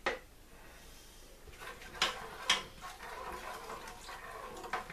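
A utensil scraping and tapping inside a plastic cup while whipping cream is emptied into a soup pot: a few sharp clicks, the loudest about two and two and a half seconds in.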